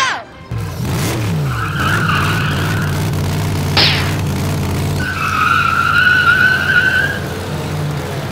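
Monster-truck engine rumble with tire squeals, a sound effect laid over a ride-on toy truck. One squeal comes about two seconds in, and a longer, louder one comes around five to seven seconds in. A short sharp crack sounds near four seconds.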